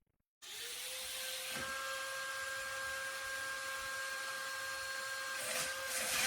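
Suction fans of a remote-control wall-climbing gecko toy running steadily: a whirring hiss with a thin steady whine. It starts suddenly about half a second in.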